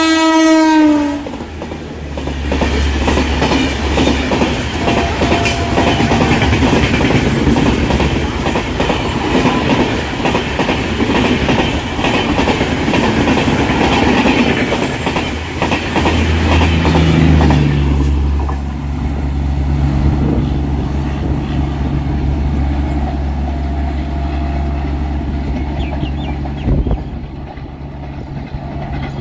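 Express train with a WAG-9HC electric locomotive passing at speed. Its horn cuts off about a second in, then the coaches rush by with wheel clatter until the sound drops away after about eighteen seconds, leaving a low steady hum.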